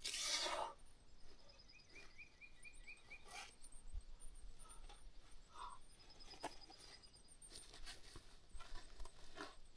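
Small songbirds calling in open country: a quick trill of evenly repeated notes, with thin high chips and a second, higher series of notes. A brief rush of noise comes at the very start.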